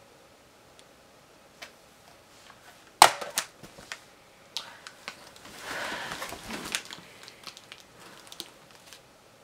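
Snack packages being handled in an open cardboard subscription crate: a sharp knock about three seconds in as an item is set down on the pile, a few lighter clicks, then a stretch of packaging rustle and small taps.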